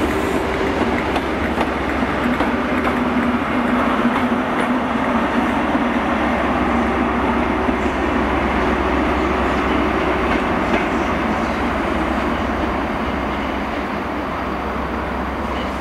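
GWR InterCity 125 high-speed train passing, its coaches' wheels running on the rails, with the rear Class 43 diesel power car going by about halfway through. The sound eases slowly near the end as the train draws away.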